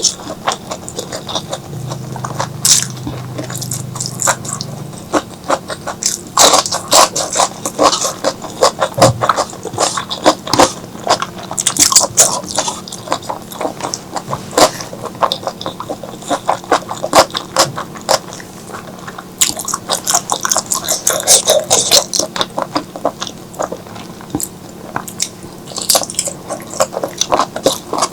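Close-miked eating sounds: chewing and biting on spicy squid and okra curry, a dense run of irregular clicks and smacks.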